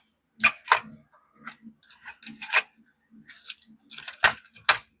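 Steel sockets of an SK socket set clinking against each other and the tray as they are handled: a string of irregular metallic clinks, the sharpest about four seconds in and just before the end.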